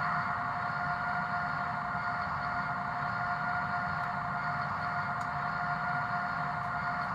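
Sound decoder of a Roco BR 232 'Ludmilla' H0 model locomotive playing the diesel engine idling through the model's small speaker: a steady running sound with a constant hum tone.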